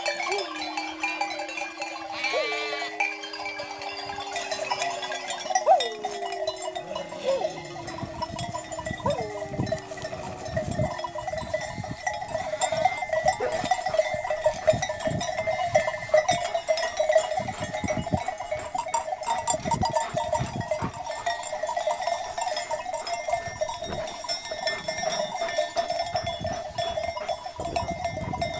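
Sheep and goats bleating, several long calls overlapping in the first ten seconds or so, over the steady clanking of many flock bells as the flock moves.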